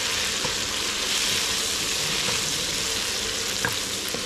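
Chilies frying in hot oil in a pan: a steady sizzle with a few small pops.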